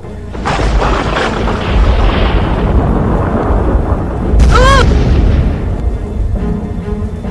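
Heavy rain with a deep rumble, swelling to a loud boom about four and a half seconds in as fire bursts out, with a short wavering pitched sound over the boom. Low sustained music tones come in near the end.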